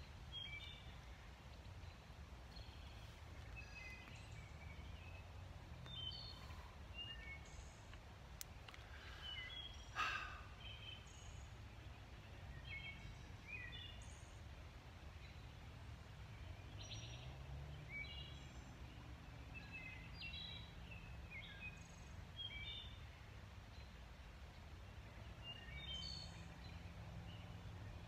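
Faint woodland birdsong: many short chirps and calls from several birds, over a low steady rumble. A single sharp knock about ten seconds in stands out as the loudest sound.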